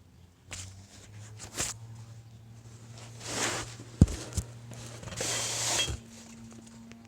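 Steady low hum, the drone of a worn front-end wheel bearing on a 2006 Mercury Milan, with bursts of hiss and two sharp thumps about four seconds in.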